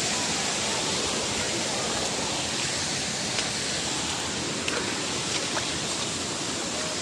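Steady rush of running water, with a few faint clicks in the second half.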